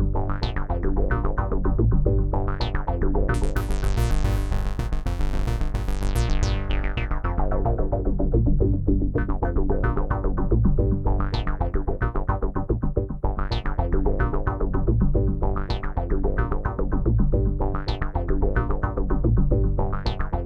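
Arturia MicroFreak hybrid synthesizer playing a fast repeating note sequence over a steady low bass, run through a Behringer VD-400 analog delay pedal. A bright, hissy swell rises over it about three seconds in and fades out about four seconds later.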